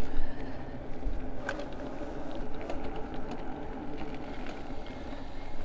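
Noise of an e-bike ride: a continuous low rumble of wind and tyres with a steady hum over it, and a few light clicks and ticks.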